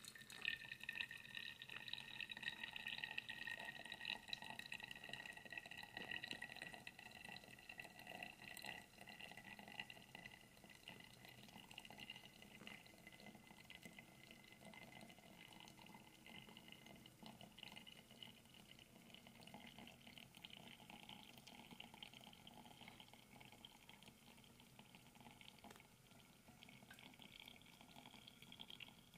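Hot water poured in a thin stream from a thermos flask onto ground coffee in a paper coffee filter, a faint trickling pour. It is strongest over the first several seconds, then goes on as a quieter trickle.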